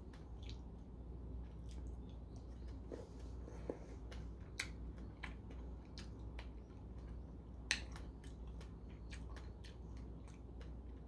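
A man chewing a strawberry with his mouth close to the microphone: faint, irregular wet clicks and smacks of the mouth, over a low steady hum.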